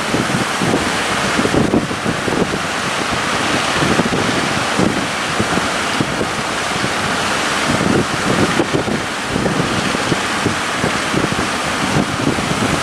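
Heavy wind buffeting the microphone over the steady rush of rough sea and breaking waves.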